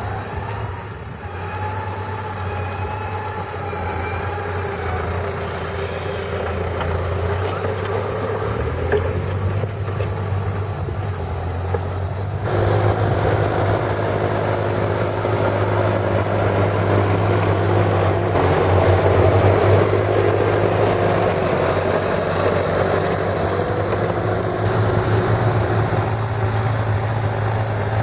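John Deere tractor engine running steadily as it pulls a plough, a low drone that gets suddenly louder about halfway through.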